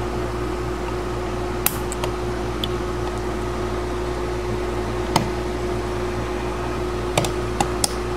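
A few small, sharp clicks and taps as hands and a screwdriver work the mounting screws of a plastic switch sub plate: one about two seconds in, one about five seconds in, and three close together near the end. Under them is a steady background hum with a faint constant whine.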